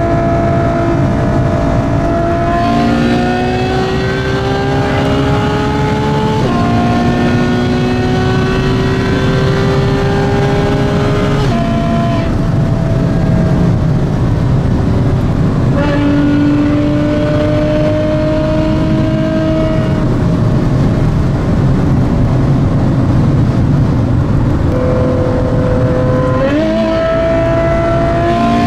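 Ferrari F12berlinetta's 6.3-litre V12 with a Novitec exhaust, heard from inside the cabin, accelerating hard through the gears. The engine note climbs steadily, drops sharply at a gear change about six seconds in, then climbs again. Later it settles into a steadier drone over road noise, and near the end it steps up quickly in pitch.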